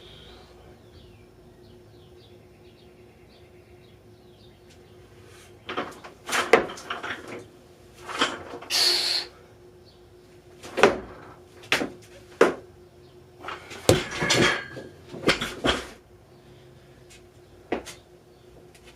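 Barbell and plates clattering in a string of sharp knocks and clanks over about ten seconds, from a light 70 kg clean and jerk. A steady faint hum runs underneath.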